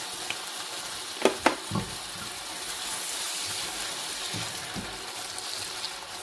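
Ground beef sizzling steadily in hot oil, with three sharp clicks and a knock about a second and a half in and a spoon stirring through the meat near the end.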